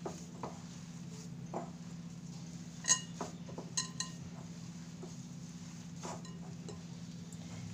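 A glass mixing bowl clinking and knocking as a hand kneads a potato and chicken mixture in it: a few soft knocks and a few sharp ringing clinks, the loudest about three seconds in, over a steady low hum.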